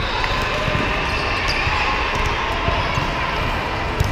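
Volleyballs being hit and bouncing across a busy multi-court hall: scattered sharp ball smacks over a steady crowd hubbub, with one sharper hit about four seconds in.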